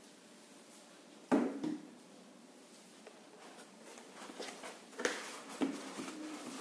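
The thermal camera with its smartphone attached is set down on a table with one sharp knock. A few seconds later come rustling and several lighter knocks as a cardboard box is handled and a foam insert is lifted out of it.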